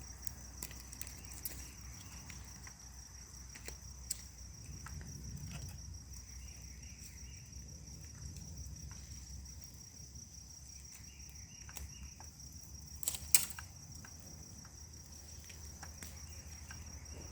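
Crickets trilling steadily and high-pitched, with scattered faint clicks and one sharp knock about thirteen seconds in.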